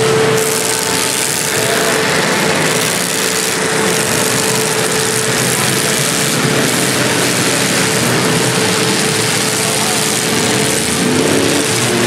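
Several demolition derby stock cars' engines running and revving together in a dense, unbroken wash of noise, with a steady tone through about the first half.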